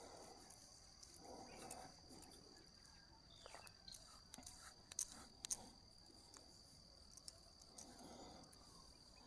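Near silence with a faint, steady, high-pitched drone of insects such as crickets, and a few faint sharp clicks, the loudest two about five seconds in.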